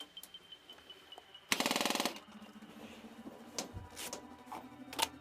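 Airsoft gun firing a short full-auto burst of rapid shots, about half a second long, followed by a few single sharp cracks.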